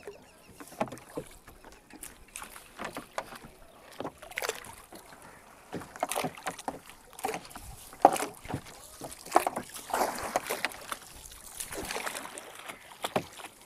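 Small boat being worked on a river, a bamboo pole dipping into the water: irregular splashes and knocks of water against the hull, coming in scattered bursts.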